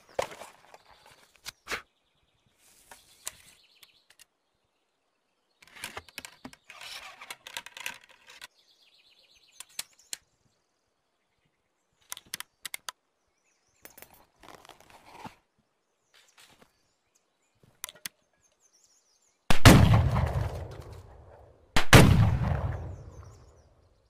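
Flintlock double-barrelled shotgun: a series of sharp metallic clicks and short rattles from the locks and gun being handled, then two loud shots about two seconds apart, one per barrel, each trailing off in a long fading echo.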